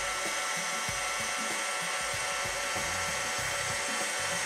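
Electric stand mixer's motor running at a steady high speed with an even whine, beating a butter, shortening and sugar batter while flour is added.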